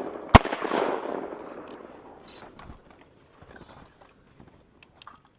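A single 12-gauge shotgun shot about a third of a second in, its report echoing and dying away over the next two seconds. A few faint clicks follow.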